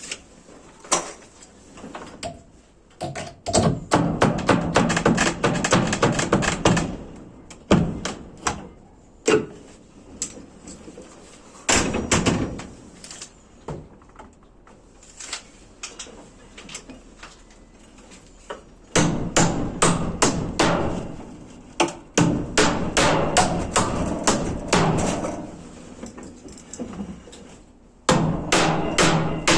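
Hammering on wood: runs of quick repeated blows, several a second, with single knocks in the pauses between them.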